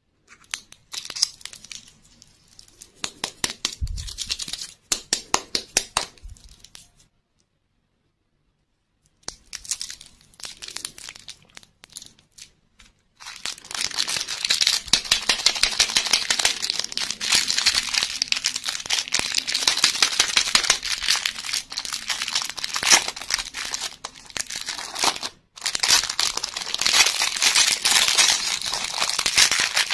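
Clear cellophane wrapper crinkling and tearing as hands open a packet holding a small plastic toy, a dense, steady crinkle through the second half. Before that comes a quick run of sharp hard-plastic clicks and taps from a plastic lollipop capsule, then a few seconds of silence.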